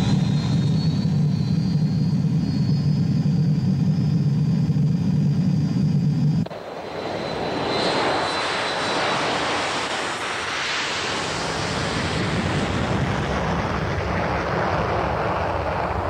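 Steady low hum with a high whine rising in pitch, the engine sound in a jet flight simulator's cockpit as the throttles are pushed up. About six seconds in it cuts abruptly to the rushing noise of a rear-engined jet airliner taking off, which swells as the jet lifts off and climbs away.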